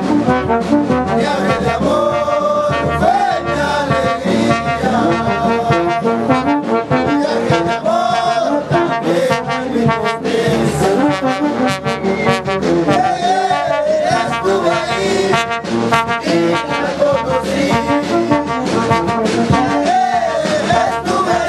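Brass band playing a tune, led by trombones and trumpets, with a steady beat underneath.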